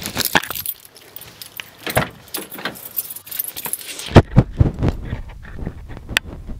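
Car keys jangling and clicking while a car door is opened, then several heavy thumps about four seconds in as someone climbs into the driver's seat, and a single sharp click near the end.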